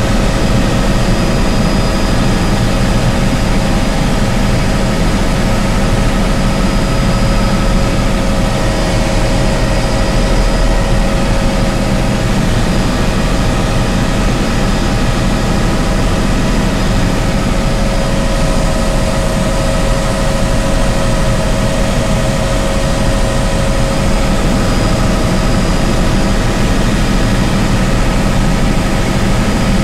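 Helicopter engine and rotor noise heard from inside the cabin in flight: a loud, steady drone with a low rumble and a few constant whining tones.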